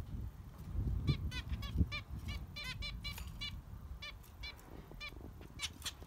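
Zebra finches calling: a rapid scatter of about twenty short calls, several birds calling over one another. There is a low rumble underneath in the first couple of seconds.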